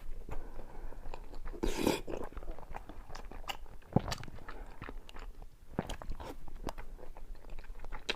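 Close-up mouth sounds of eating soup-soaked egg: wet chewing with many small smacking clicks, and one louder noisy burst about two seconds in.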